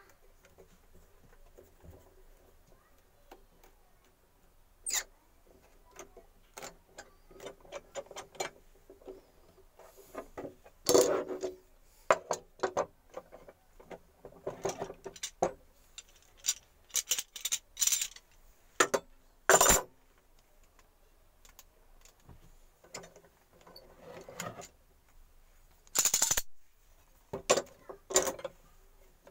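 Irregular knocks, clicks and clatter of small wooden pieces being handled and set down by hand, with no power tool running; a few sharper knocks stand out, the loudest about two-thirds of the way in.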